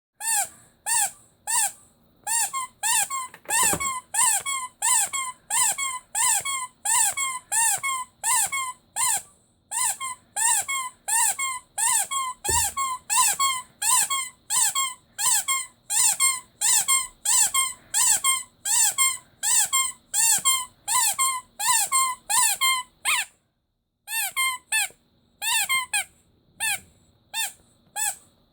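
Squeaky rubber toy squeezed over and over, about two squeaks a second, each a short pitched squeak that rises and falls. The run breaks briefly twice, and two faint dull thumps come in among the squeaks.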